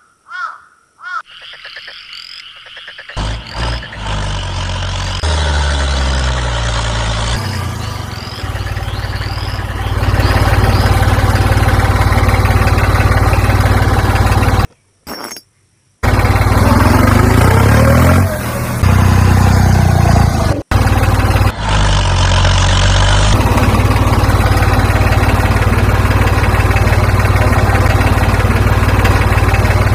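A motor running loudly and steadily with a deep hum, its pitch shifting in steps, broken by a few abrupt cuts to silence near the middle.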